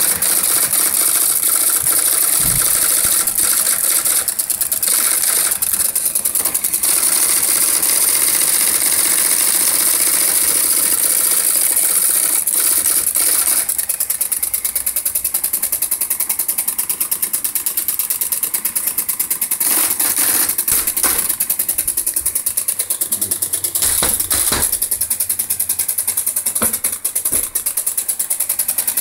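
IBM electric typewriter running, a fast, even mechanical clatter of rapid strokes that keeps up without a break.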